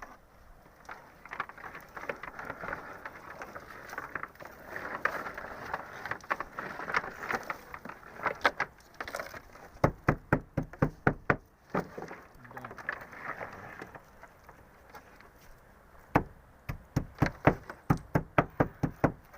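Rustling and scraping, then two runs of sharp, rapid knocks at about four a second, the second run longer and near the end.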